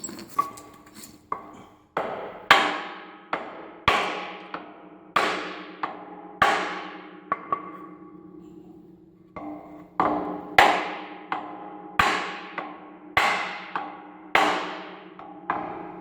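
Hammer blows on metal, driving a new seal into the John Deere 550 tiller's bearing housing. The blows come steadily at about three every two seconds, each ringing on briefly, with a pause of about a second and a half near the middle.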